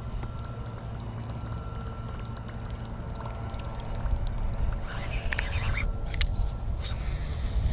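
Wind buffeting the microphone, a steady low rumble, with a few sharp clicks and a short rustle in the second half.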